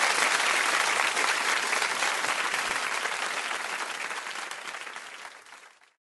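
Crowd applause, many hands clapping in a dense patter that fades out steadily and stops just before the end.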